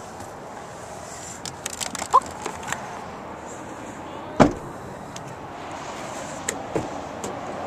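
Clicks, a short squeak and handling noise of someone climbing out of a Chevrolet Express van's cab, then one loud thud of the van's door shutting about four and a half seconds in, followed by a few light taps.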